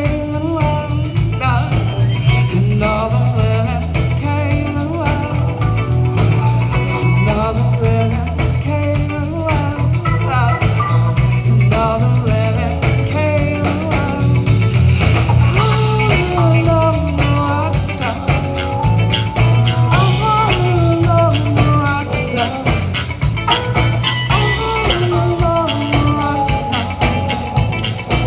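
Live jazz quartet playing: electric bass and drum kit holding a steady groove, with keyboard and electric guitar on top.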